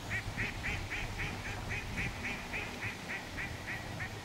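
A bird calling a rapid, regular series of short notes, about four a second, over a low steady background rumble.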